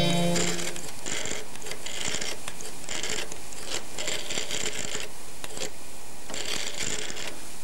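Telephone rotary dial being dialed: about seven spins, each winding back with a short ratcheting whirr, with brief pauses between digits.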